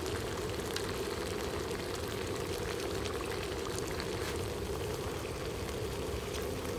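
Spicy stingray stir-fry sauce bubbling and sizzling in a wok, over a steady low rush, with scattered small pops and clicks.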